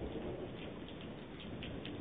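Steady rain falling, with a few faint drip ticks, heard muffled through a Ring video doorbell's microphone.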